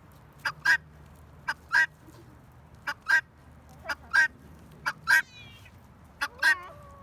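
Guinea hen (female helmeted guineafowl) giving the two-syllable "buck-wheat" call six times, about once a second. This two-note call is the sign of a female, since males give only one-syllable calls.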